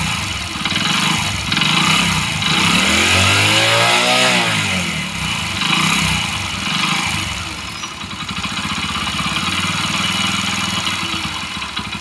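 Hero Splendor's 100 cc single-cylinder four-stroke engine blipped with the throttle several times, its pitch rising and falling, with a thick, heavy knock under throttle. The mechanic takes the knock for piston slap: a loose piston in a freshly fitted cylinder kit.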